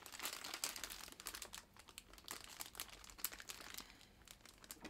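Plastic candy packaging crinkling as it is handled: a fairly faint, dense run of crackles.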